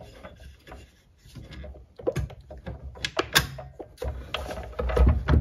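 Bosch Glide miter saw's bevel mechanism being unlocked and the heavy saw head tilted over: a series of sharp metal clicks and knocks, with a heavier low knock near the end.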